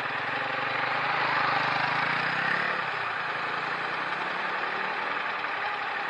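Road and engine noise heard inside a car, with a low engine hum that fades about three seconds in as the car slows to a stop in traffic, then steady idling noise.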